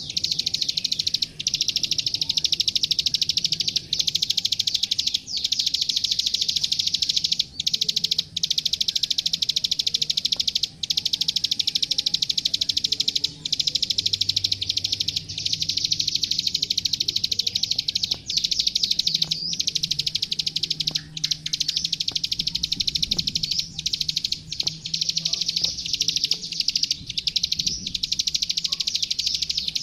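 A klik-klik (ciblek sawah) bird singing a fast, unbroken chatter of very rapid clicking notes, pausing only for brief breaks. It is recorded as training song for young birds to copy.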